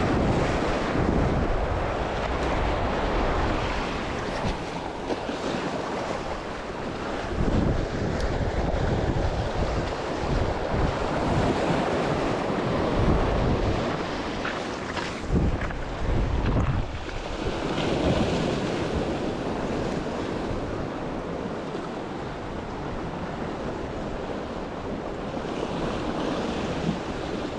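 Sea waves breaking and washing over the rocks of a stone jetty, with wind buffeting the microphone in gusts.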